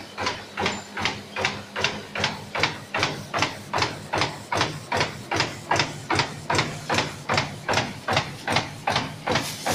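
Paper cup blank flexo printing and die-cutting machine running, its punching unit knocking in an even rhythm of about three strokes a second over a low steady motor hum.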